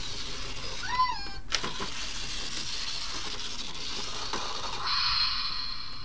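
A cat meows once, a short call that rises and falls, about a second in, over a steady high whirring hiss. A few light knocks follow, and the whirr grows louder for a moment near the end.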